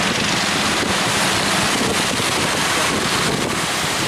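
Heavy surf at a river mouth with strong wind buffeting the microphone, a loud steady rush of noise.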